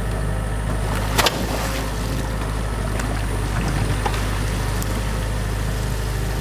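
New Holland mini excavator's diesel engine running steadily while its bucket churns and splashes through water and mud at a beaver dam. A sharp knock about a second in.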